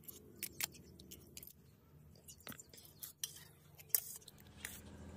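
Steel spoon clinking and scraping against a steel plate of rice and dal, with chewing between the strokes. A few sharp clinks, the loudest about four seconds in.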